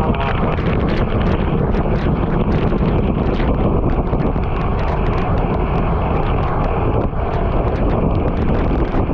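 Loud, steady wind rushing over the microphone while moving at speed.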